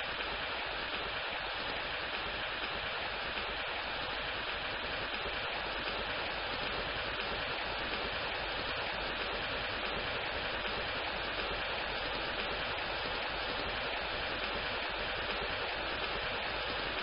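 Rain sound effect: a steady, even hiss of falling rain.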